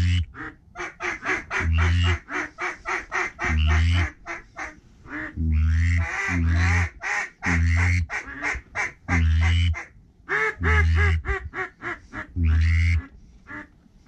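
Loud duck quacking: long, drawn-out quacks about every second or two, with quick runs of short chattering calls in between.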